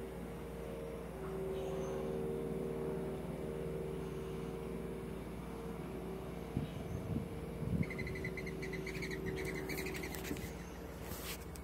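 A steady low mechanical hum runs under everything. A little past halfway come a few knocks, then a bird chirps rapidly for about two seconds, followed by a sharp click near the end.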